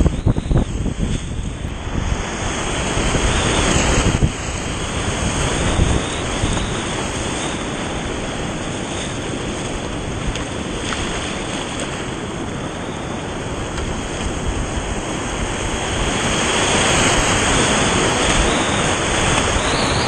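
Whitewater rapids rushing and splashing around a kayak, heard close up from the paddler's position, growing louder a few seconds before the end.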